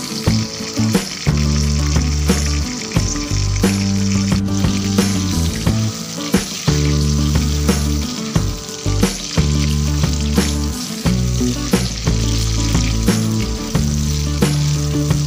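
Wild mushroom pieces frying in hot oil in a steel wok, a steady sizzle, mixed with background music with a beat.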